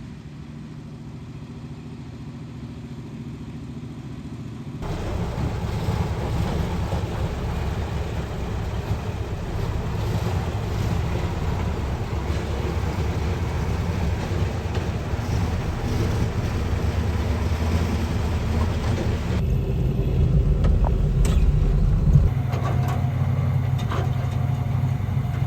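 A heavy vehicle's engine running steadily and getting louder. The sound changes abruptly about five seconds in and again near twenty seconds, and a few clicks and knocks come near the end.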